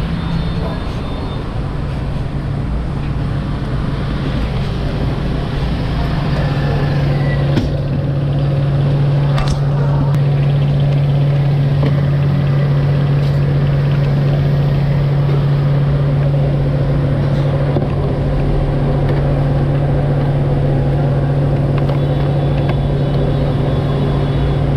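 A steady low machine hum, constant in pitch, that grows stronger about seven seconds in, with a couple of faint light clicks soon after.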